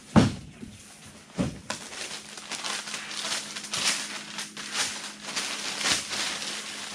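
Packing paper crinkling and rustling as it is pulled out of a cardboard box, in a run of irregular bursts, after two thumps in the first second and a half.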